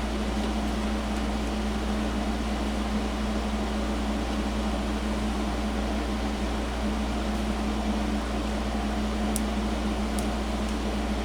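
Steady fan-like whirring with a constant low hum, with a couple of faint clicks near the end.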